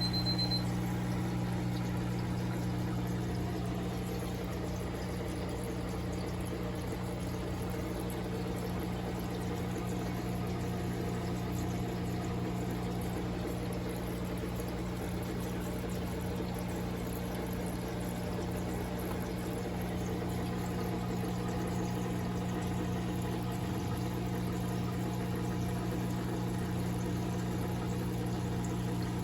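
Aquarium filter pump running, water pouring steadily into the tank over a low, even hum.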